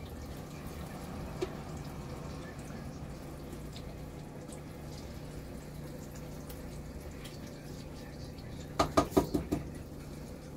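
Dishes and utensils being handled at a kitchen counter: a faint click early, then a quick clatter of about six sharp knocks near the end, over a steady low kitchen hum.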